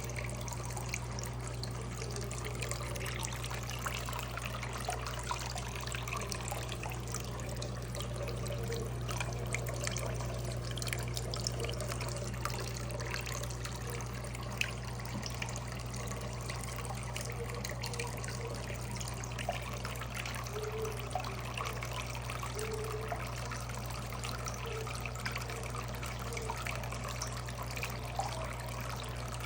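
Water trickling and splashing steadily over a small homemade concrete tabletop waterfall fountain fed by a small water pump, with a steady low hum underneath.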